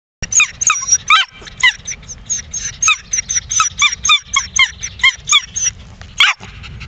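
Jack Russell terrier giving a rapid string of short, high-pitched yips and whines, about three or four a second, with a brief break about four seconds in.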